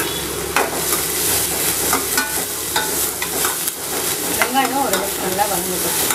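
Chopped onions frying in hot oil in a stainless steel kadai, sizzling steadily, with scattered clicks and scrapes of a metal slotted spatula stirring them against the pan.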